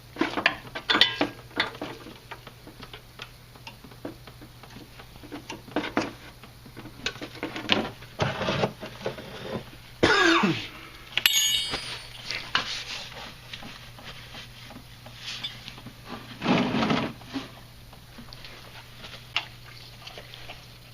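Hand tools and metal brake fittings clinking and knocking while a brake line is disconnected at the caliper. There is a bright metallic clink about halfway and a dull thump later on.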